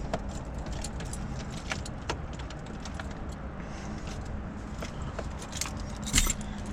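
Keys jangling and clicking in short scattered bursts, a louder cluster near the end, over a steady low hum.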